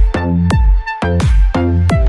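Electronic background music with a steady beat and deep bass drops.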